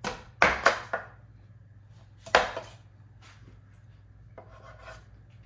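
Knife chopping through baked tandoori chicken, a few sharp, hard strikes: two close together about half a second in and another about two and a half seconds in, with lighter knocks between.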